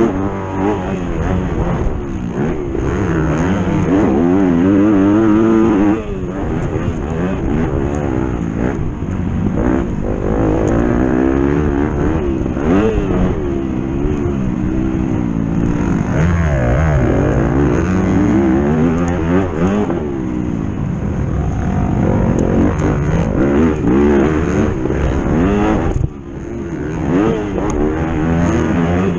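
A racing engine revving hard under load, its pitch climbing and dropping again and again, with sudden brief drops about six seconds in and near the end.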